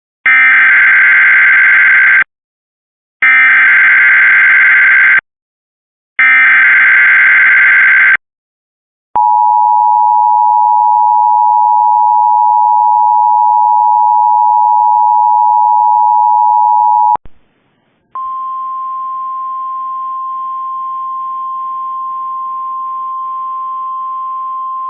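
Emergency Alert System alert announcing a severe thunderstorm watch. It opens with three bursts of SAME digital header data, each about two seconds long and a second apart, then the eight-second two-tone EAS attention signal. That signal cuts off with a click, and after about a second a steady, slightly higher single tone begins, the NOAA Weather Radio alert tone relayed ahead of the spoken message.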